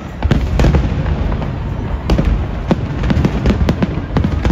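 Fireworks display: a rapid, irregular string of sharp bangs and crackles over a continuous low rumble.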